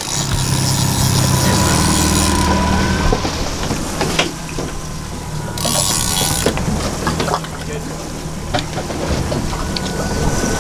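Fishing reel being cranked in with a fish on, its mechanism clicking and ratcheting, over the steady low hum of the boat's outboard motors.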